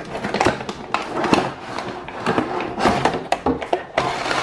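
Cardboard toy box and clear plastic packaging being handled: an irregular run of taps, knocks and rustles.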